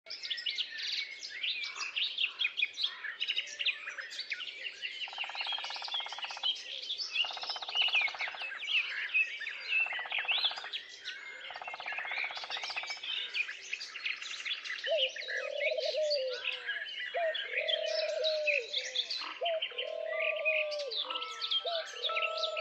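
A chorus of songbirds chirping and singing, with repeated rapid trills in the middle and a pigeon or dove cooing over and over in the second half. Steady musical tones come in near the end.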